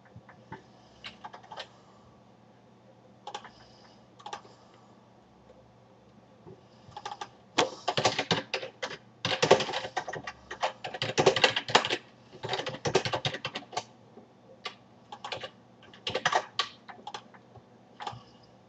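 Computer keyboard typing: a few scattered keystrokes at first, then a long fast run of typing through the middle, then shorter bursts of keys near the end.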